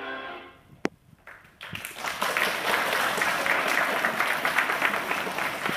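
A piece of music fades out, a single sharp click follows, and then, about a second and a half in, an audience of schoolchildren breaks into applause that keeps going steadily.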